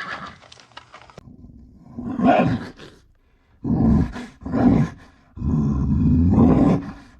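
The tail of a horse's whinny fades out, then a large animal gives a series of low calls: one short call, two more close together, and a longer one near the end.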